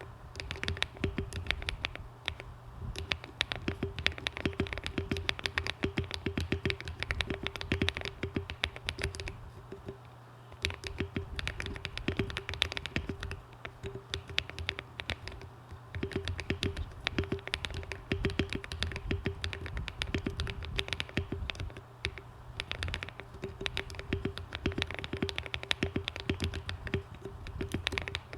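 Fast, continuous typing on a Monsgeek M1 aluminium-case mechanical keyboard with hand-lubed Akko Cream Yellow linear switches and ASA-profile keycaps, tape-modded. The keystrokes come as a dense stream of clicks, slackening briefly twice.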